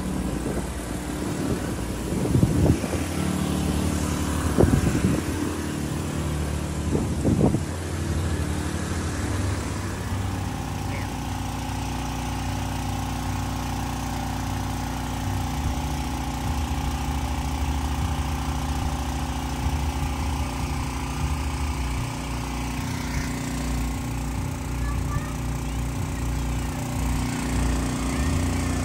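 An engine running steadily, with a few louder, rougher spells in the first eight seconds.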